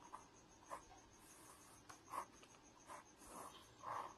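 Faint scratching of a pen on notebook paper: a few short strokes as a line of working is written and a box is drawn around it, the loudest stroke near the end.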